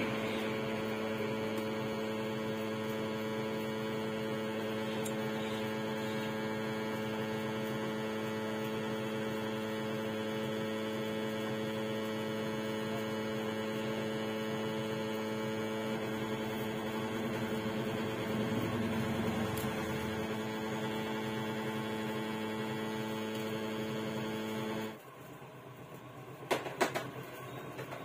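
A steady electrical hum made of several even tones, cutting off suddenly about 25 seconds in, after which a few faint clicks are heard.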